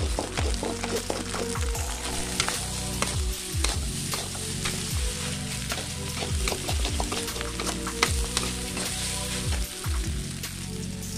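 Fried rice sizzling in a metal wok while a metal spatula stirs it, with frequent clinks and scrapes of the spatula against the pan.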